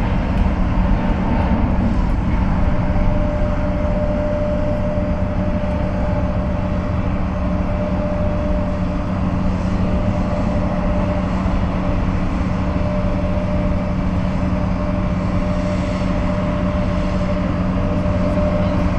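Jet engines of a twin-engine airliner at takeoff power, a steady noise with a steady hum and a steady whine running throughout.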